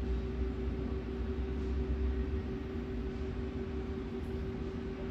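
Steady mechanical hum: a low rumble under a constant droning tone, unchanging throughout.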